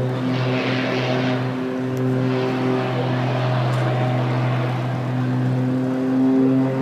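Propeller aerobatic plane's engine droning steadily in flight, its pitch wavering slightly.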